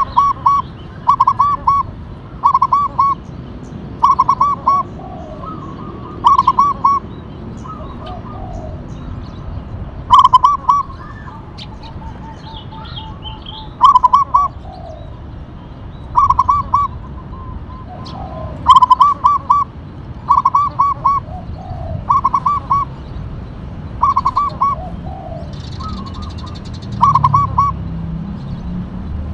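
Zebra dove (perkutut) singing: short phrases of quick staccato cooing notes, repeated every one to four seconds, about fifteen times.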